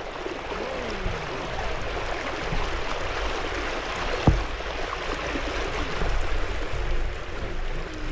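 Water rushing and splashing along the hull of an inflatable boat under way, with a low rumble of wind on the microphone. A single sharp knock about four seconds in.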